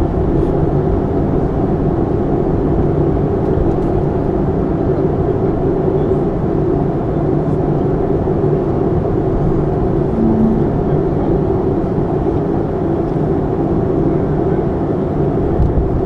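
Cabin noise inside a Boeing 737-300: a steady rumble and hum from its running CFM56 jet engines and the airflow, with no rise or fall in pitch. A brief low tone sounds about ten seconds in.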